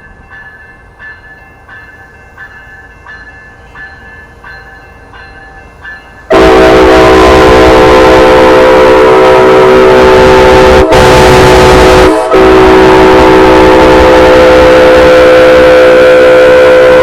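A bell rings steadily, a bit under two strokes a second. About six seconds in, an Amtrak ALC-42 locomotive's horn cuts in with one very loud, long chord of several tones, broken twice by brief gaps.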